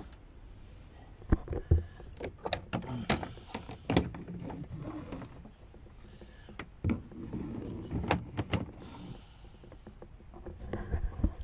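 Irregular clicks, clunks and knocks of boat hardware being handled: a hinged fiberglass hatch and fittings at the stern being opened and worked, with loud knocks grouped between about one and nine seconds in and a few more near the end.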